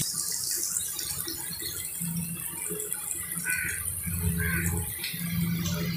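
Potato finger chips deep-frying in hot ghee in a wok, a steady sizzling and bubbling. This is their second, final fry after par-frying and cooling.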